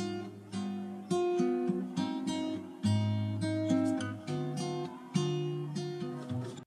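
Background music: acoustic guitar playing plucked notes.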